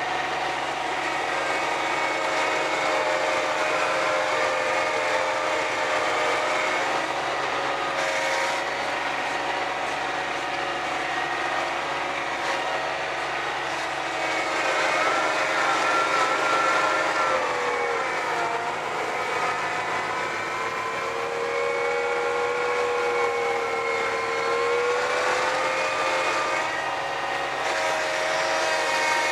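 John Deere 1026R compact tractor's three-cylinder diesel and front-mounted 47-inch snowblower running steadily while throwing snow, heard from inside the tractor cab. The whining pitch sags briefly about two-thirds of the way through and then recovers.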